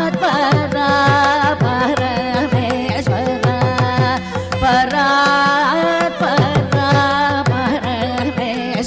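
Carnatic music: a female voice sings ornamented, gliding phrases over a steady drone, with a hand drum striking runs of low strokes whose pitch falls.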